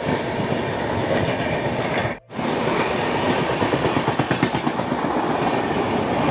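Indian Railways passenger coaches rolling past close by: a steady rumble of steel wheels on the rails with a rapid clickety-clack. The sound breaks off for an instant about two seconds in.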